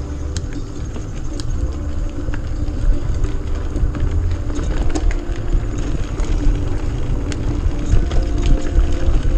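Mountain bike riding a dirt trail, heard from a camera on the bike or rider: a heavy, steady wind rumble on the microphone, tyre noise, and scattered sharp clicks and rattles as the bike goes over rough ground.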